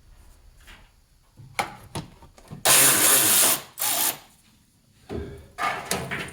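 A cordless power driver runs in a short burst of about a second near the middle, with a shorter burst after it, amid scattered knocks and scraping from handling the underbody panel and its fasteners.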